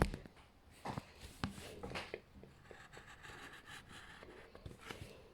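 Faint handling noise: a few soft taps in the first two seconds, then low rustling.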